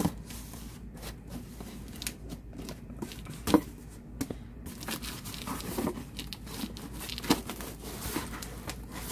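Scissors slicing along the packing tape on a cardboard box, then tape tearing and the cardboard flaps being pulled open and rustled, with many small clicks and scrapes. Two sharp knocks stand out, one near the middle and one a few seconds later.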